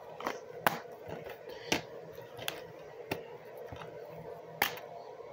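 Plastic DVD cases being handled: about six sharp, irregularly spaced clicks and taps as the cases are picked up, flipped and set down.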